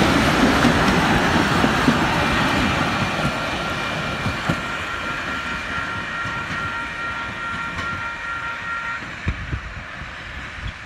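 Passenger train's last carriage rolling past and away, wheels on the rails fading steadily. A steady high-pitched ringing tone runs from about two seconds in until near the end, and a couple of knocks come near the end.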